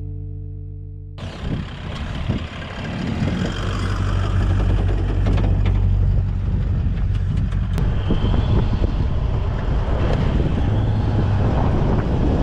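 A held music chord dies away, then about a second in it cuts to a four-wheel-drive ute driving over sand: engine and tyre noise with a deep steady rumble and wind buffeting the microphone.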